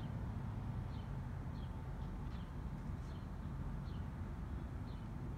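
A small bird chirping repeatedly outdoors, short falling chirps about once a second, over a steady low rumble of outdoor background noise.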